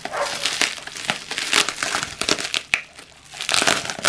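Bubble wrap crinkling and crackling as hands unwrap a package, with louder bursts about a second and a half in and near the end.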